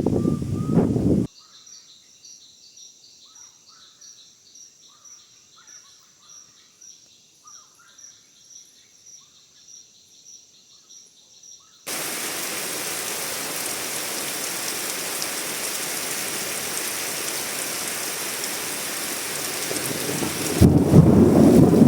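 Abrupt changes between nature sounds: a brief low rumble, then a quiet stretch of about ten seconds with a steady pulsing high drone and small bird-like chirps, then steady rain starting suddenly, with a loud low rumble of thunder joining near the end.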